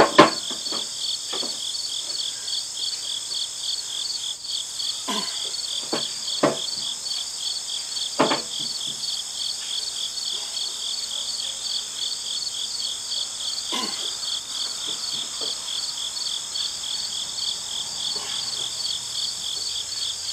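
Crickets chirping in a steady, rhythmic pulse, several chirps a second. Over them come a handful of sharp metal clanks and knocks from a clamp-on pallet fork's screw clamp being tightened onto a tractor loader bucket. The loudest clank comes right at the start.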